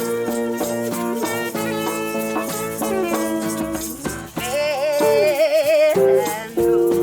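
Music with a shaker rattling along under held, changing notes; about two-thirds of the way through, a higher note wavers up and down before lower notes return near the end.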